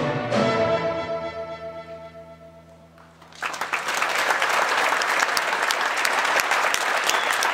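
A school string orchestra holds its final chord, which fades away over about three seconds. Then the audience bursts into applause, which goes on steadily.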